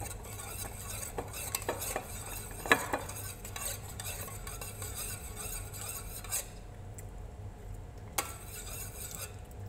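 A metal spoon stirring a watery sauce in a stainless steel pot, scraping and clinking against the sides, with one sharper clink a few seconds in. The stirring dies down after about six seconds, and one more clink comes near the end.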